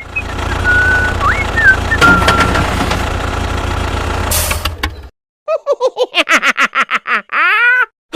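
A vehicle engine running steadily with a faint whistle over it, cutting off about five seconds in. After a brief silence comes a quick run of short chirping sounds that drop in pitch.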